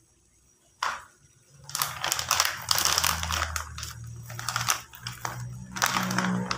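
Plastic packet of agar agar strips crinkling as it is handled, with one sharp crackle about a second in and then a few seconds of dense crackling.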